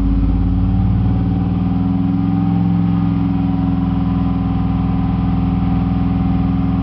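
Chevy 6.0 L V8 truck engine running through dual Flowmaster mufflers, held steady at raised revs around 2400 rpm. The engine has a persistent random misfire (code P0300) and does not run as smoothly as it should.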